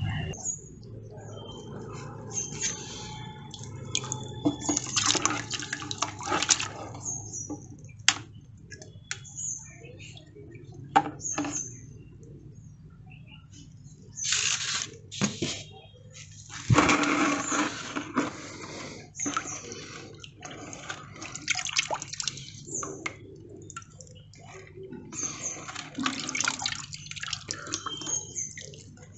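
Water splashing and pouring in irregular bursts, with a few sharp knocks; the longest and loudest burst comes about halfway through.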